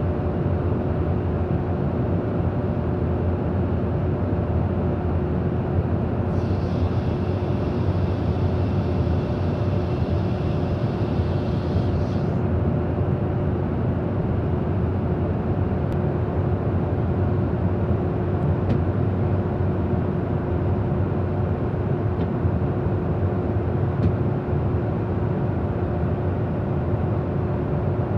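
Steady in-flight cabin noise of a KC-135 Stratotanker heard inside the boom operator's pod: a dense low rumble of engines and airflow with two steady hums. A faint higher hiss joins from about six seconds in until about twelve.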